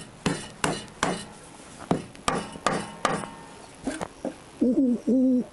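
Rubber mallet knocking on a Honda CBR1000F's rocker cover to break it free of the cylinder head: two runs of four dull knocks, about three a second, then a few lighter taps. Near the end come several short low hooting calls.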